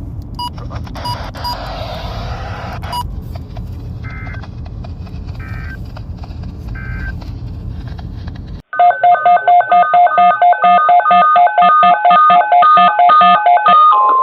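Low rumbling static of weather-radio dead air. About nine seconds in it gives way to a loud, rapid string of touch-tone (DTMF) beeps lasting about five seconds. Near the end a steady single-pitch alert tone starts, the kind of warning alarm tone that NOAA Weather Radio sounds before an alert.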